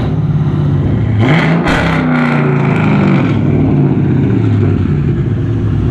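2013 Dodge Charger R/T's 5.7-litre Hemi V8 with long-tube headers, catless mid pipes and a straight-pipe exhaust, given a short rev. The revs climb about a second in and fall back to a loud idle.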